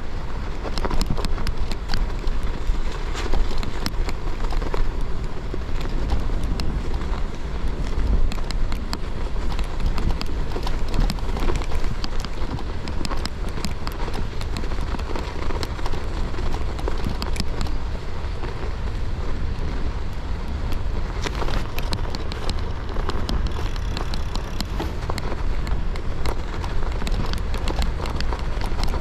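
Gravel bike tyres rolling slowly over snow and ice, a steady crackling crunch of many small clicks, with a constant low wind rumble on the camera microphone.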